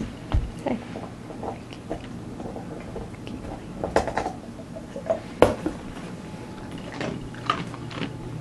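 German Shepherd chewing and gnawing on a bone: irregular clicks and cracks of teeth on the bone, the loudest about four and five and a half seconds in.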